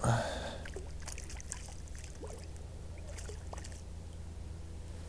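River water lapping and trickling at the bank, opening with a short, louder splash, over a steady low hum.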